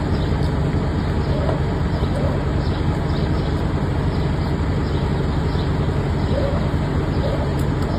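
Steady low rumble of road traffic, unbroken and even in level.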